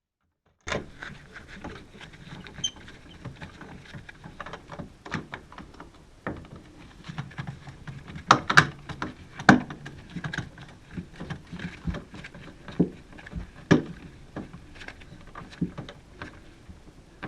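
Hands and tools at work on a household refrigerator: irregular clicks, taps and knocks, loudest in a cluster of sharp knocks about eight to ten seconds in. The sound begins after a moment of dead silence.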